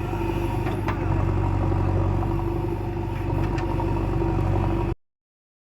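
JCB 3DX backhoe loader's diesel engine running steadily, with a few light knocks over it; the sound cuts off abruptly near the end.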